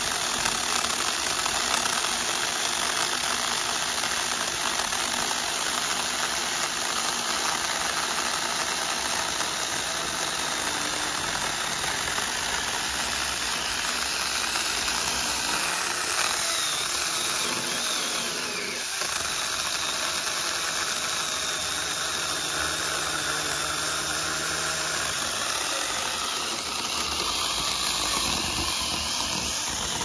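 Saker 4-inch 20-volt battery mini chainsaw running steadily under load as its chain cuts down through a 3-inch branch.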